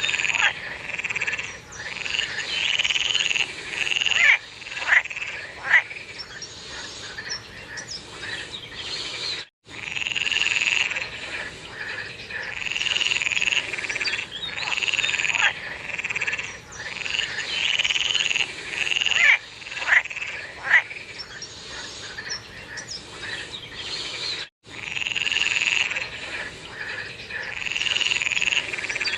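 A chorus of frogs calling over and over, with overlapping repeated croaking calls and a few sharper clicking notes. The sound drops out completely for an instant twice, about a third of the way in and near the end.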